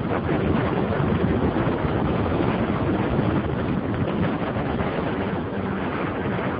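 Wind roaring over the microphone of a BMW F650 Funduro motorcycle cruising at steady speed, with its single-cylinder engine running underneath.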